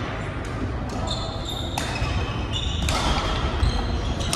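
Badminton rally: a few sharp racket strikes on the shuttlecock about a second apart, with shoes squeaking on the wooden court floor, echoing in a large hall.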